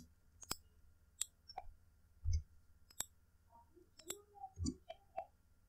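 Computer mouse and keyboard clicks: about nine sharp clicks at uneven intervals, two of them duller thumps.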